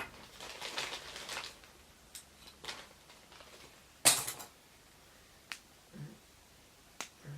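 Small plastic doll accessories being handled: a short rustle near the start, then a few sharp plastic clicks, the loudest about four seconds in.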